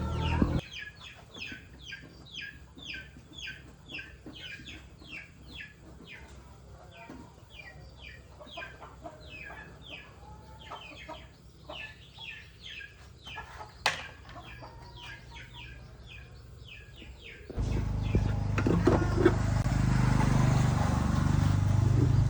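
Chickens calling, a quick run of short, high, falling notes, several a second. A single sharp click comes about 14 s in. Near the end a loud steady noise with a deep low end starts suddenly and drowns out the calls.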